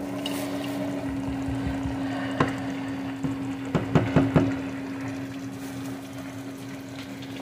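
Beaten eggs sizzling in a nonstick frying pan over the steady hum of an air fryer running, with a few light scrapes and taps of a spatula in the pan about two and four seconds in.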